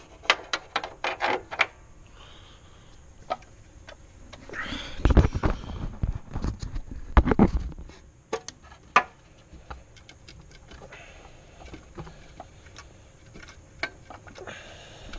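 Wrench work on the alternator's long mounting bolts: scattered metallic clicks and ticks, with a quick run of them in the first second and a half. From about five to eight seconds in there are heavier knocks and rustling.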